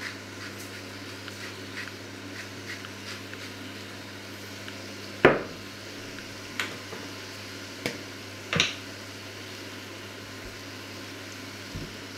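A slab of meat frying quietly in a small pan, with faint crackling spits. Four sharp knocks of utensils against the pan come in the middle, the first the loudest.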